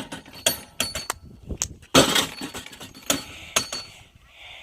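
Hammer blows on a high-striker strength game: a series of sharp strikes, some with a metallic clank and a brief high ring.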